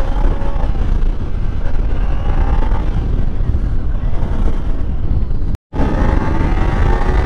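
Kawasaki Ninja sport bike engine running under way, its pitch rising and falling with the throttle, under heavy wind rumble on the rider's microphone. The sound cuts out for a split second about five and a half seconds in.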